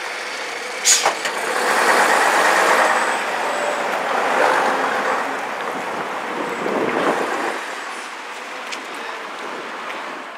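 Vintage double-decker bus engine running as the bus turns in and drives past, loudest about two to three seconds in and fading near the end, with a brief sharp hiss about a second in.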